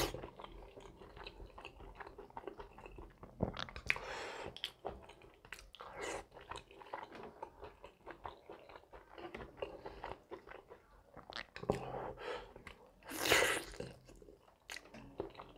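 A person chewing and crunching food eaten by hand, close to the microphone, with many small crackles and a couple of louder bites, about four seconds in and again near the end.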